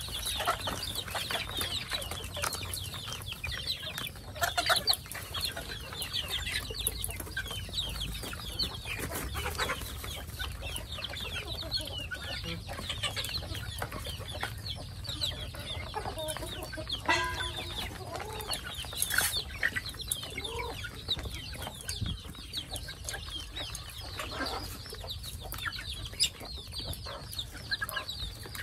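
A flock of half-grown chickens calling without a break: a dense chorus of short, high-pitched cheeps mixed with clucks.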